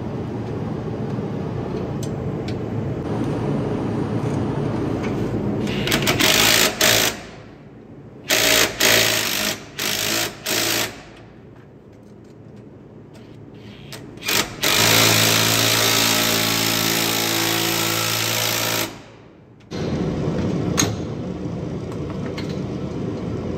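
Impact wrench hammering a nut onto a trailer axle's U-bolt, forced on over damaged threads: a loud run about six seconds in, several short bursts between about eight and eleven seconds, and a long run of about four seconds from fifteen seconds. A steady low hum lies under it at the start and near the end.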